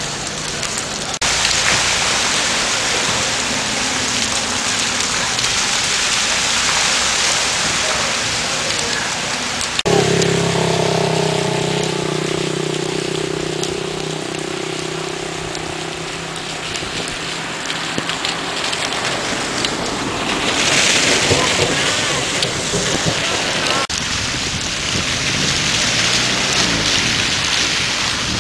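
Steady hiss of rain falling on flooded streets and standing water. From about ten seconds in, a low hum with several steady tones runs underneath for several seconds, and the sound changes abruptly at three points.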